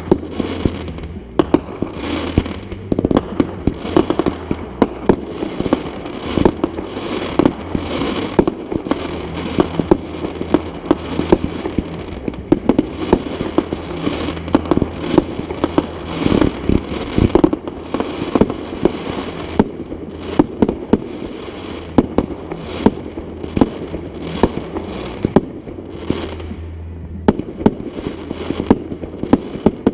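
Fireworks display: a continuous barrage of sharp bangs, several a second, over steady crackling.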